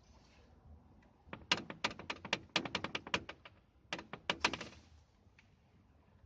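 Rapid rattling knocks, about seven a second, in a run of about two seconds followed by a shorter run a moment later. The source is a car's electric radiator fan assembly knocking in its loose lower mounts, a knock that was mistaken for a front suspension fault.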